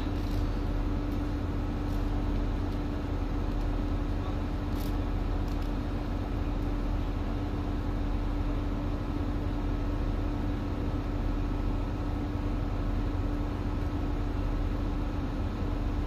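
Steady low drone of a ship's machinery, with a constant hum over a low rumble. A faint click about five seconds in.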